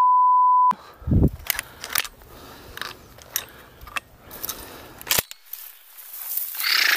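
A steady 1 kHz censor bleep over the first three-quarters of a second. Then footsteps crunch and rustle through dry stubble and grass, with scattered crackles, a low thump about a second in and a hissing rustle near the end.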